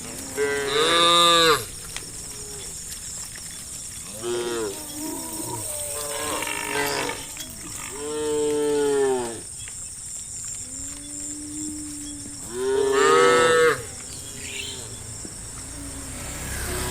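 Cows in a herd mooing, about six calls of different pitch and length, some short and some drawn out; the loudest come about a second in, around eight seconds in, and about thirteen seconds in.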